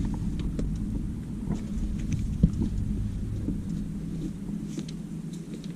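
Climbing gear and clothing scraping and clicking against rock in a narrow chimney, over a steady low rumble on the microphone, with one sharp knock about two and a half seconds in.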